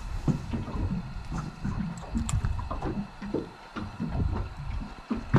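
Irregular small knocks, taps and rustling from handling on a fishing boat as a crappie is held on the line, with a sharp click about two seconds in.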